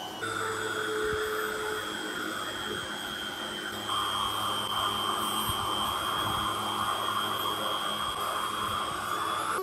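Handheld rotary tool running with a steady high whine while its small buffing wheel rubs against the rusty iron of an old lock, giving a hiss under the whine. It gets louder about four seconds in.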